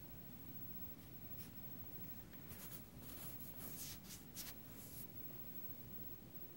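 Faint scratching and rustling from two play-fighting cats swatting at each other on a fabric couch arm, paws and claws scraping the upholstery in a cluster of short scrapes from about two and a half to five seconds in, over a low steady room hum.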